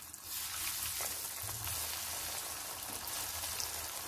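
Bread-crumb-coated kheel (puffed rice) snacks deep-frying in hot oil in a kadhai: a steady sizzle of bubbling oil that swells just after the batch goes in, with a few faint crackles.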